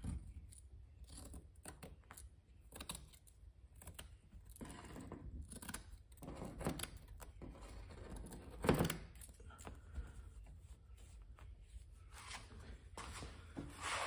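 Scissors cutting fiberglass mat: an irregular run of short snips and crinkly handling noise, with one louder snap a little under nine seconds in.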